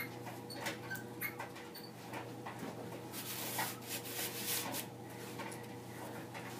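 Paper plan cut-outs being slid and shuffled across a foam board sheet: a rustling swish about halfway through, with scattered light taps and clicks around it, over a low steady hum.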